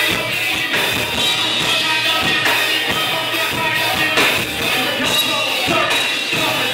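Live rock band playing loud and steady: drum kit, electric guitar and keyboard.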